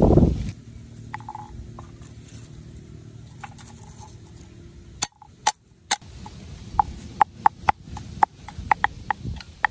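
Knife chopping garlic on a wooden stump chopping block. The chopping is a run of sharp knocks, a few a second, starting about halfway through.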